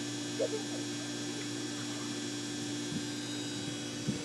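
Steady background hum of an indoor swimming pool hall: a constant droning tone over a faint even hiss, with only a small faint sound about half a second in.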